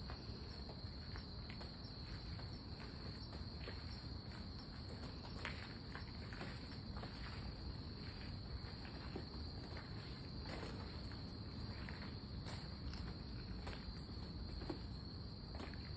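Insects chirping steadily outdoors at night, a continuous high-pitched shrill that never lets up, with occasional footsteps and soft clicks.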